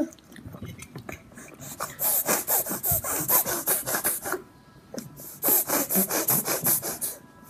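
A baby's quick, noisy breaths huffed through the nose with his mouth full of food, about four or five a second, in two runs with a short pause about halfway.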